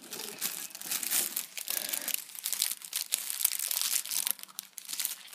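Irregular crinkling and rustling with many small clicks and knocks, as things are rummaged through and the handheld phone is jostled.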